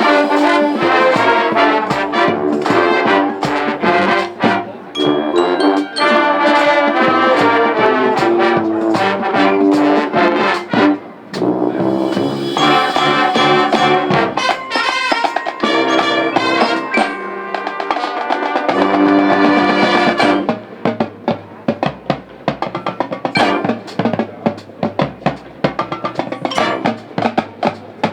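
High school marching band playing: brass instruments with drums and percussion. About two-thirds of the way through, the music turns to quick, sharp percussion strokes.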